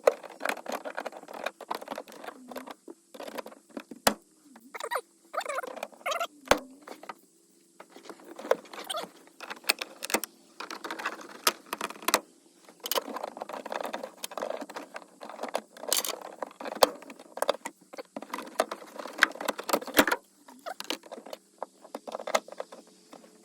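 Plastic interior trim panels being pried off their push clips with a trim tab puller: irregular scraping and rattling of plastic with many sharp clicks.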